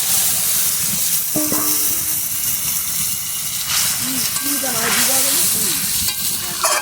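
Curry boiling and sizzling in a pan as pre-boiled eggplant pieces are tipped in and stirred, with a steady hiss throughout. A utensil knocks on the pan with a short ring about a second in, and there are a couple of scraping stirs later on.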